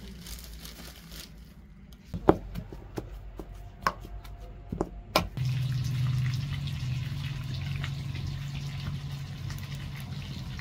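A few knocks and clinks, then about halfway in a steady, louder hiss with a low rumble starts: an open wood fire burning under a black iron pan on a mud stove.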